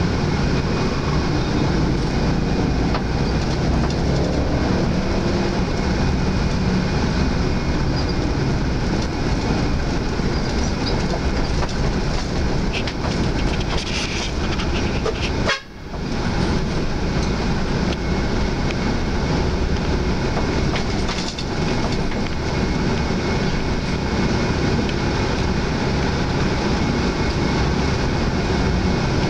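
Cabin noise inside a Hyundai Universe coach driving in city traffic: a steady low rumble from the engine and road, with a faint steady whine above it. The sound briefly drops out about halfway through.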